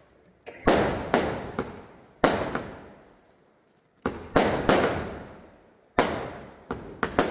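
Fireworks going off: a series of sharp bangs at irregular intervals, some in quick clusters of two or three, each trailing off in a fading crackle and echo over a second or two.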